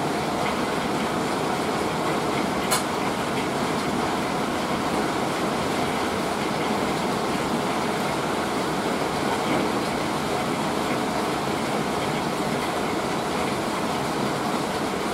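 Hail and rain pounding steadily on the house, an even, unbroken roar, with one sharp click about three seconds in.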